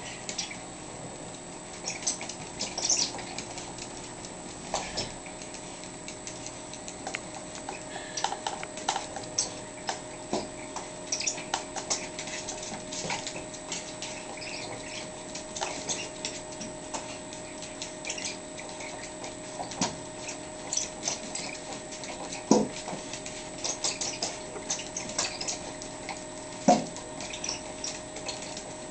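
Irregular light clicks and taps as a miniature pinscher plays with a dangling cat toy: its claws skittering on a hardwood floor and the toy knocking against a door. Two louder knocks stand out, about two-thirds of the way in and again near the end.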